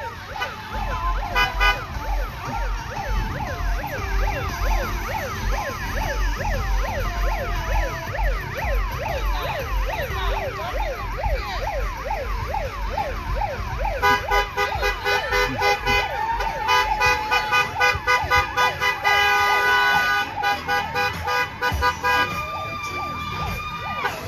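Sirens in a parade of slowly passing vehicles, wailing in fast overlapping rise-and-fall yelps, then giving way about halfway through to rapid repeated horn blasts.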